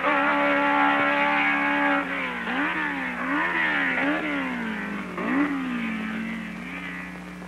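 Racing car engine at high revs: it holds a steady pitch, then rises and falls in pitch several times in quick succession and fades as it draws away. The narration points to the 1000cc Honda Formula 2 engine in a Brabham chassis.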